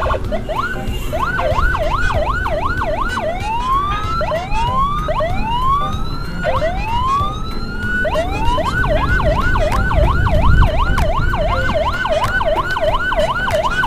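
Ambulance electronic siren changing patterns: a fast yelp rising and falling about two to three times a second, switching about four seconds in to slower rising whoops about a second apart, then back to the fast yelp about eight seconds in. A steady low rumble of wind and road noise runs underneath.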